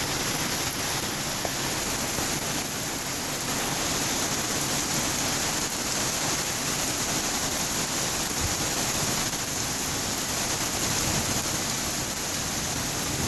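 Heavy rain coming down hard in a steady downpour, a dense even hiss of rain hitting the ground and surfaces.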